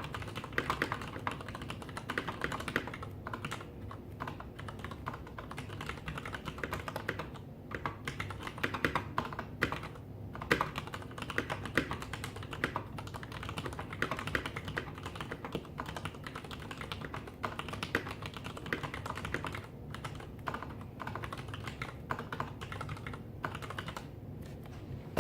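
Leopold FC750R mechanical keyboard with Cherry MX Black linear switches being typed on: a steady run of quick, irregular keystrokes, broken by a few short pauses.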